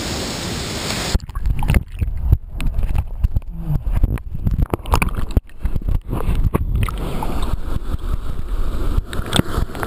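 A waterfall's steady rush for about a second, then muffled, irregular sloshing, gurgling and splashing as water washes over a waterproof camera's microphone.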